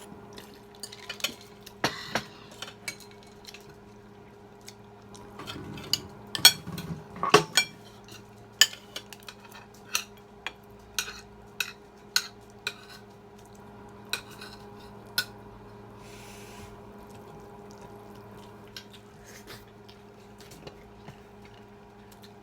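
Cutlery clinking and scraping against plates and bowls during a meal: irregular sharp clinks, most of them in the first half, over a faint steady hum.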